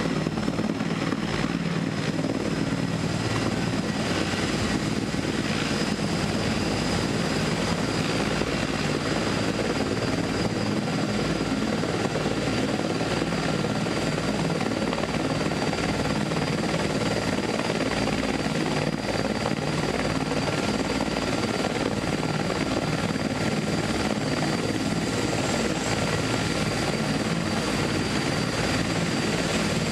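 Steady mechanical drone like an engine running, with a faint high whine over it and no change in pitch or level.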